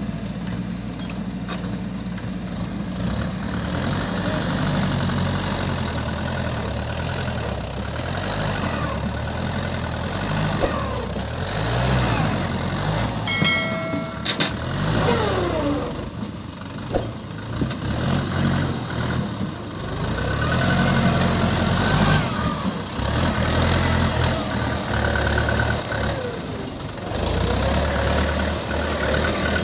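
Diesel engines of a Mahindra 575 DI tractor and a JCB 3DX backhoe loader running while the backhoe loads soil, the engine note rising and falling as the backhoe works. A short chime of a few clear tones sounds about halfway through, and the engine sound grows louder near the end as the tractor moves off.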